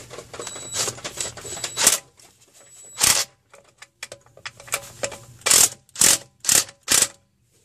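Small impact driver with a 10 mm socket running in short bursts, about six of them, the last four about half a second apart, as it runs down the oil pan bolts. Light metal clinks of parts being handled come in the first couple of seconds.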